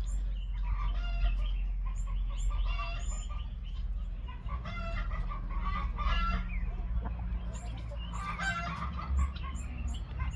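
A flock of chickens clucking, a run of repeated calls every second or two.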